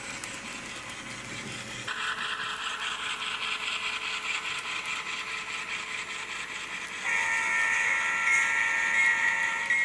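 Sound decoder in an N-scale model GE P42 diesel locomotive, playing its diesel engine sound through the model's small speaker. The tone shifts about two seconds in and steps up louder about seven seconds in.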